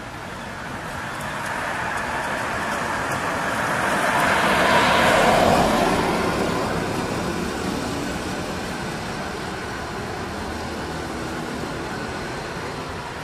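A road vehicle passing by: a broad rushing sound that builds, is loudest about five seconds in, then fades away to a steady background hum.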